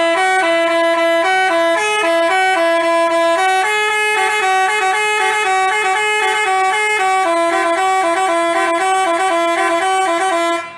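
Basuri telolet bus horn, a multi-tone musical horn, playing a tune of quick stepping notes. It cuts off suddenly near the end.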